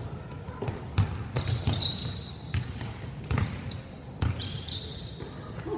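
A basketball bouncing on a hardwood court in a large sports hall: irregular sharp thuds from dribbling and play, with short high squeaks of sneakers on the floor.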